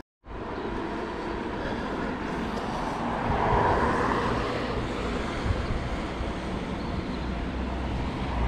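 Steady road noise of a bicycle ride heard through a chest-mounted action camera, with wind on the microphone and tyre rumble, and traffic noise that swells about three seconds in. The sound drops out for a moment right at the start.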